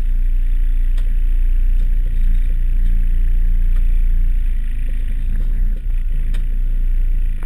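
Volkswagen T3 Syncro van's engine running steadily at low speed, heard from inside the cabin as a deep rumble while driving slowly off-road, with a few sharp knocks from the van over the rough track.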